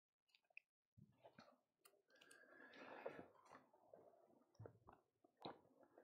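Near silence, with faint paper rustling and a few soft clicks as the pages of a Bible are turned.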